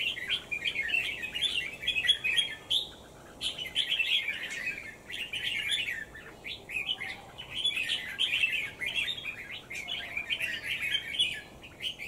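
Birds chirping in fast, dense runs of high notes, with short breaks about a quarter and half of the way through.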